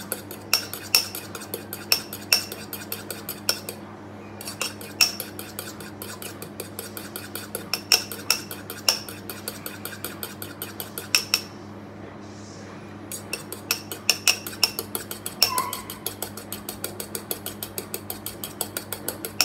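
Metal fork rapidly whisking instant coffee, sugar and water in a small ceramic bowl, clicking against the bowl several times a second, with a brief pause about four seconds in and another around the twelve-second mark. This is hand-whipping dalgona coffee mix, thickening but not yet frothy.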